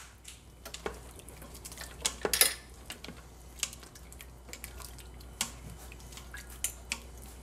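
A slotted spoon stirring a tomato and broth mixture in a Mealthy Multipot's stainless steel inner pot, with irregular clinks and scrapes against the metal. The loudest clatter comes a little past two seconds in.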